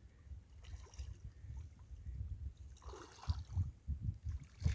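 River water splashing and sloshing around men wading in the shallows as they haul in a fishing net by hand, over a low steady rumble. A few short thumps come in the second half, the loudest just before the end.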